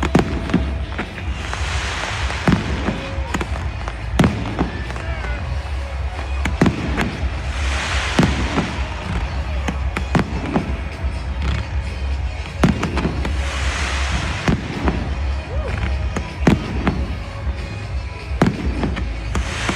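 Aerial fireworks display: a steady run of bangs and booms, with a hissing crackle that swells about every six seconds, over music playing.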